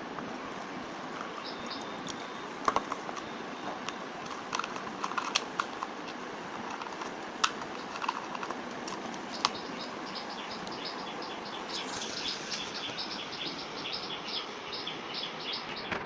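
Small birds chirping in rapid runs of short, high notes through the second half, over a steady hiss, with scattered sharp clicks and taps in the first half.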